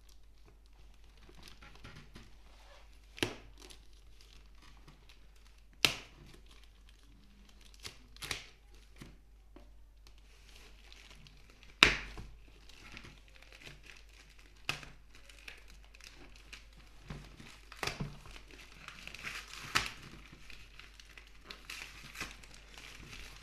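A tightly packed product box being opened by hand: crinkling and tearing of the packaging, with sharp snaps every few seconds, the loudest about halfway through.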